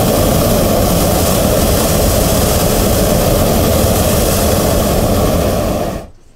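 A hot air balloon's propane burner firing in one long, loud, steady blast that cuts off suddenly near the end.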